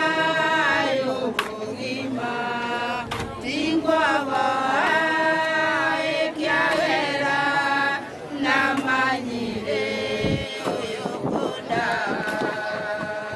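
A group of women singing a hymn together from hymn books, in long held notes with short breaks between phrases.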